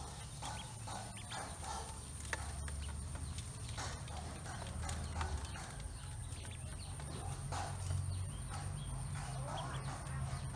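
Ducklings pecking crumbled feed in an aluminium basin: rapid, irregular clicks and taps of their bills on the metal, with short peeps among them.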